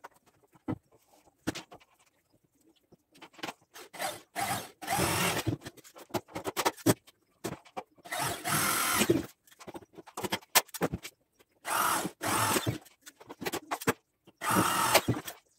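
Electric drill running in four bursts of about a second each, boring into metal gate-frame tubing, with short knocks and clicks of handling in between.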